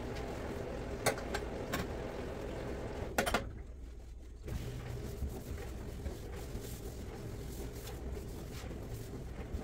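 Cloth rubbing over a stainless steel sink basin as it is wiped dry, with a few sharp clicks and knocks against the steel, over a steady low hum.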